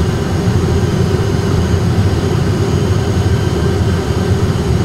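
Steady low drone of an Airbus A320's engines and airflow heard in the cockpit on short final, a continuous rumble with an even hum running through it.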